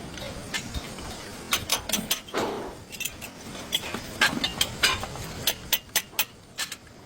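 Irregular sharp metallic clinks and taps, a dozen or more spread unevenly, with a softer scraping sound about two and a half seconds in.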